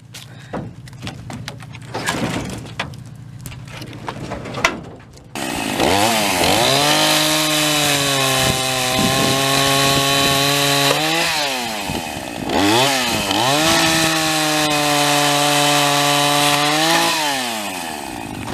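Wood knocking and clattering, then a gasoline chainsaw comes on suddenly about five seconds in. It is revved up and held at full throttle twice, each time for about four seconds, dropping back to idle in between and again near the end.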